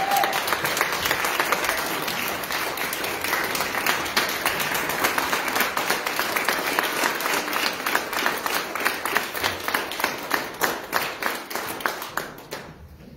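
A congregation clapping and applauding together, many hands at once; the clapping thins out and dies away near the end.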